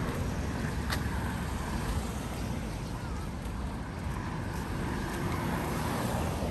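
Steady low rumble of outdoor background noise, with faint voices in the distance.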